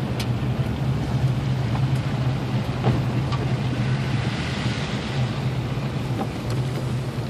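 A car's engine and road noise heard inside the cabin while driving: a steady low hum under an even rush of noise, with a few faint clicks.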